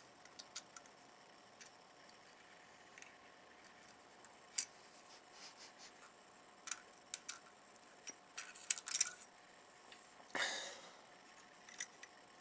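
Faint scattered clicks and taps of pliers and wire leads being handled against a circuit board, with a quick run of clicks around nine seconds in and a louder brief burst of noise about a second later.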